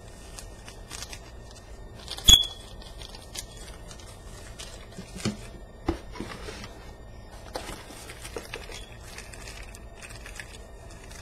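Packaging being handled by hand: light crinkling and rustling with scattered clicks and knocks. The loudest is a single sharp click about two seconds in.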